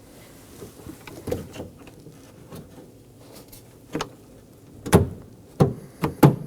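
Replacement exterior door handle being pushed and worked into place in a car door: a few light clicks, then a cluster of four louder knocks and clunks about five seconds in.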